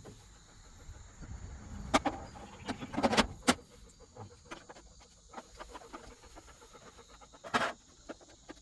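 Scattered plastic clicks and knocks from handling a Greenworks 40V cordless lawnmower as it is readied for use, with a low rumble about a second to three and a half seconds in; the motor is not heard running.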